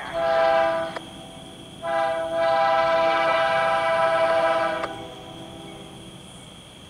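CSX freight locomotive's multi-chime air horn sounding for a grade crossing: a blast of about a second, then, after a short gap, a long blast of about three seconds, its chord steady throughout. When the horn stops, a fainter steady noise of the approaching train remains.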